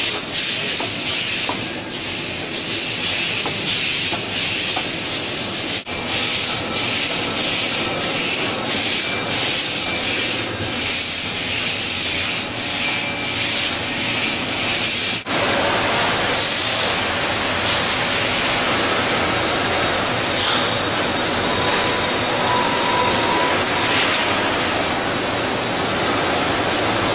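Machinery noise of an automated bread-roll handling line, with conveyor belts and robots running. It is a loud, dense, hissing noise that flickers unevenly at first and changes abruptly about six and fifteen seconds in, then runs steadier.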